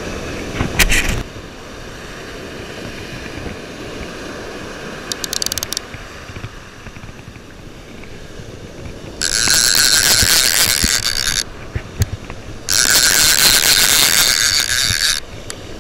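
Bait clicker on a vintage Penn No. 77 Sea Hawk direct-drive casting reel buzzing in two runs of rapid clicks, each about two seconds long, as line is pulled off the spool: the bite alarm of a fish taking the bait, here a sea robin. A brief knock comes about a second in.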